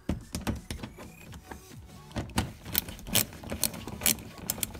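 Hand ratchet with a 10 mm socket on an extension, clicking in irregular runs of sharp ticks as it loosens the bolts of a car's plastic underbody panel. The ticks get louder and more spaced out in the second half.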